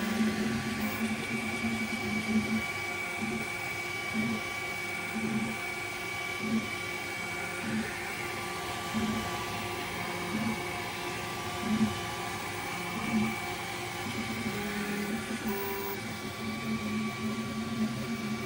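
FYSETC Voron Trident CoreXY 3D printer running a print: the stepper motors hum in low tones that shift every half second or so as the toolhead changes direction, over a steady fan hiss with a thin high whine.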